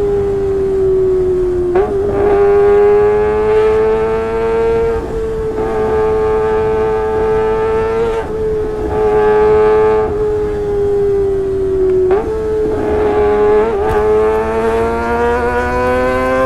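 Kawasaki ZX-25R's 250 cc inline-four engine through a Sportisi Motorsport SRX exhaust, held at high revs. It gives a loud, high-pitched note that climbs slowly and breaks with a brief dip in pitch about five times.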